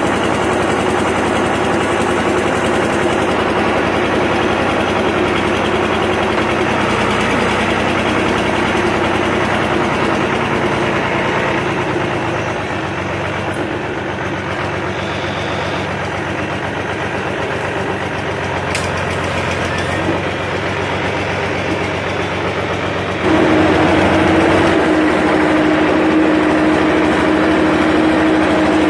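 Ursus 1201 tractor's diesel engine running steadily while pushing hay with a front push bar. The engine gets suddenly louder about two-thirds of the way through, with a steady hum.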